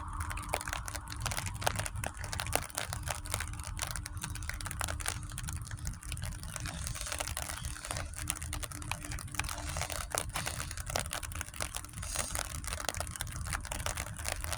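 Rain pattering: a dense, irregular run of light ticks from falling drops, over a low steady rumble and a faint steady hum.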